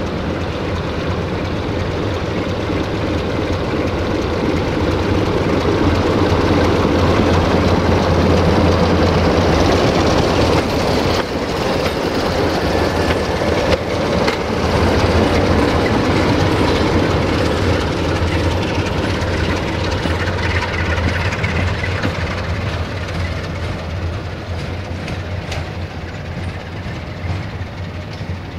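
Diesel locomotive hauling passenger coaches passes close by: its engine drone builds as it approaches, the wheels clatter over rail joints as it goes past around the middle, then the sound slowly fades away.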